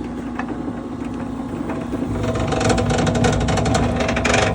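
1500-watt electric wire stripping machine running with a steady motor hum. About two seconds in it gets louder, with a dense rapid clatter, as a length of wire is fed through and its insulation stripped.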